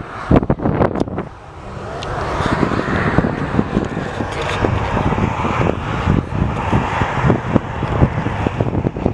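Heavy wind buffeting the microphone, with a broad jet-engine roar swelling up about two seconds in and holding steady.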